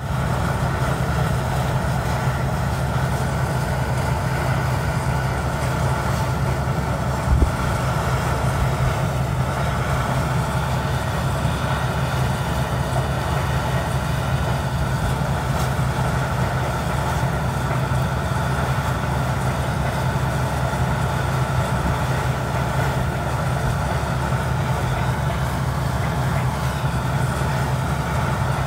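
Water-well drilling rig running steadily: a low, even engine drone under a rushing noise, with one short knock about seven seconds in.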